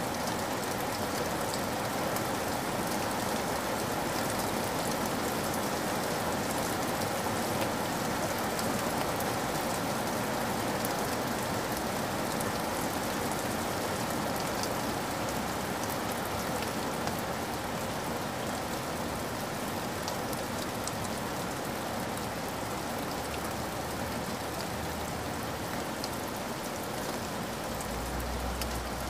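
A steady, even rushing noise like rain, with no speech; a low hum comes in near the end.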